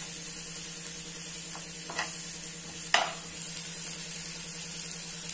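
Chopped onions and ginger-garlic paste sizzling steadily in oil in a nonstick frying pan, frying until the paste loses its raw smell. A metal slotted spoon knocks against the pan a few times in the first three seconds, loudest about three seconds in.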